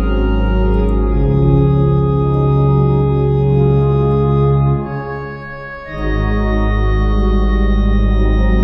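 Aeolian-Skinner virtual pipe organ playing hymn music in sustained chords over deep pedal notes. About five seconds in the sound thins and drops for under a second, then a full chord comes in.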